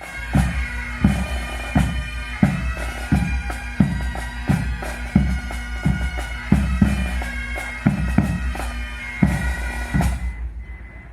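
Bagpipes and drums playing live: steady bagpipe drones and chanter with a drum beat about one and a half times a second. The music fades out near the end.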